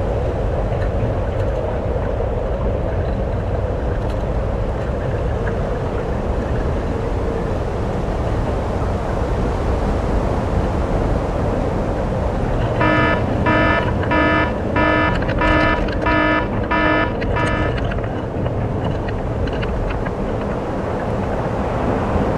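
Wind buffeting the GoPro microphone and water rushing along the hulls of a Hobie Tiger catamaran sailing fast in strong wind. About halfway through, a pitched hum pulses about seven times over five seconds.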